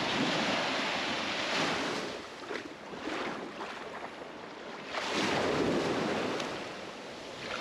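Ocean surf breaking on a beach: two washes of waves that swell and fade about five seconds apart.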